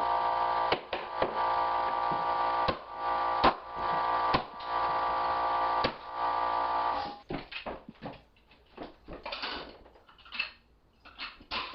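Air compressor running with a steady hum while a pneumatic flooring stapler is struck and fires staples into hardwood boards, about six sharp strikes. About seven seconds in the compressor stops, leaving quieter knocks and scuffs of boards being handled.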